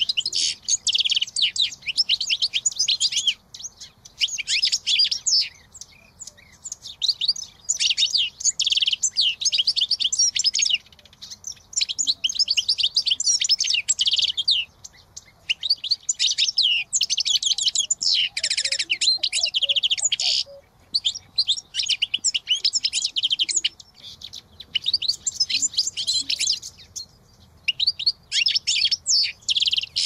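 A reed warbler–type songbird singing: runs of rapid high notes in phrases a few seconds long, broken by short pauses.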